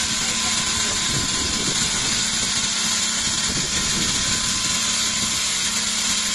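Multi-blade granite block saw cutting through a granite block with water cooling: a steady hiss with a constant hum underneath.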